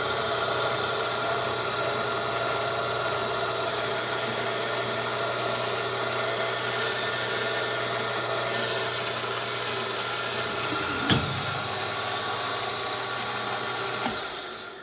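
Milling machine running, its spindle turning a reamer through the valve guide bore of a hit-and-miss engine cylinder head: a steady motor hum with several whining tones. A sharp knock about eleven seconds in, and a lighter one near the end.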